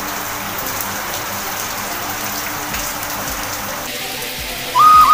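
Steady heavy rain falling and pattering on surfaces, heard through an open window. Near the end, music with a high held note cuts in louder.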